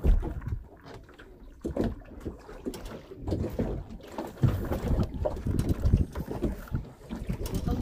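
Wind buffeting the microphone and choppy waves lapping and slapping against the hull of a small fishing boat, in uneven gusts and swells.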